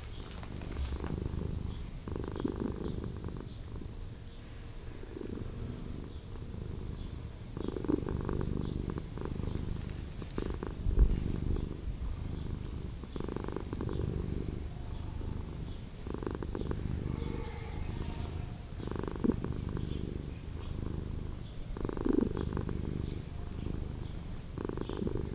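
Domestic cat purring close up as it is stroked on the head, a low continuous purr that swells and eases with each breath, about every two to three seconds.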